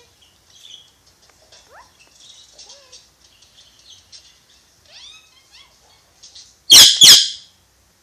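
Pakistani ringneck parakeet making soft chirps and short gliding whistles, then two loud harsh squawks in quick succession near the end.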